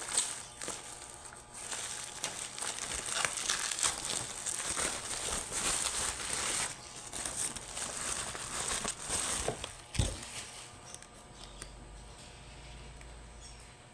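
Packaging crinkling and rustling as it is handled and opened, with a single knock about ten seconds in; after that it goes quieter.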